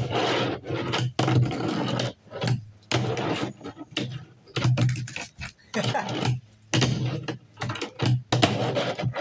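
Tech Deck fingerboard's plastic wheels rolling across a table top in repeated short runs, broken by sharp clicks as the board is popped and lands on the table.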